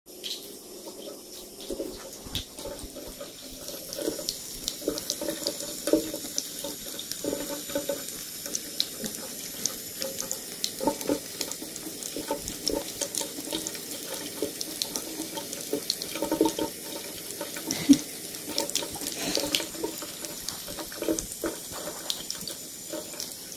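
Bathroom tap running a thin stream into a sink, with irregular small splashes as a cat laps from the falling water, and a couple of sharper splats about 6 and 18 seconds in.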